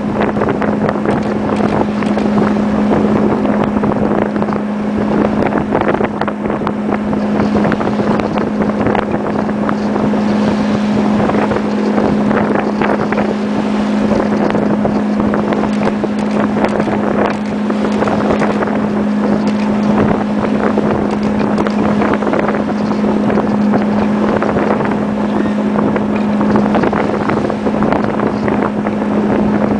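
Wind buffeting the microphone on the deck of a sailing schooner, a continuous rushing with many small gusts, over a steady low hum.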